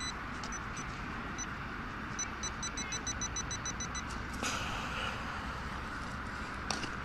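Handheld metal-detecting pinpointer beeping in short high-pitched pips as it is probed over a dug hole and picks up metal: a few scattered beeps, then a quick run of about six a second. A steady low background noise runs underneath, with a couple of brief knocks later on.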